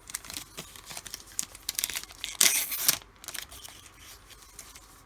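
Foil trading-card pack wrapper crinkling and being torn open, with a louder rip about two and a half seconds in, then fainter rustling.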